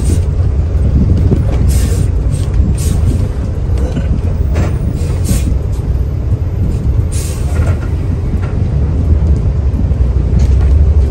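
Mercedes-Benz OH 1521 bus under way, with a steady low engine drone and irregular rattles and knocks every second or two.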